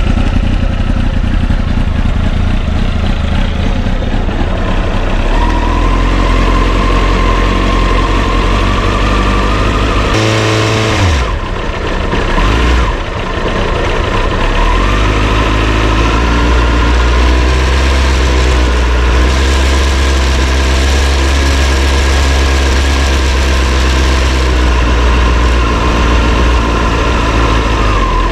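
Honda CBR929RR inline-four engine idling with a steady, grating high-pitched metallic whine over it; the engine note changes briefly about ten to thirteen seconds in. The mechanic believes the whine comes from the stiff, worn water pump.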